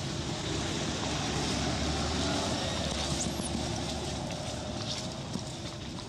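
A steady rumble of a motor vehicle going by, swelling to its loudest about two seconds in and then slowly fading. A brief high squeak comes a little past the middle.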